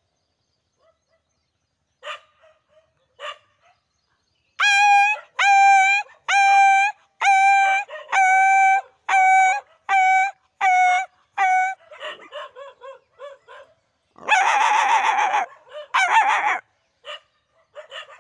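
Barking: a run of about ten loud, evenly spaced, high yelping barks, then a patter of fainter barks and two harsh, loud barks near the end.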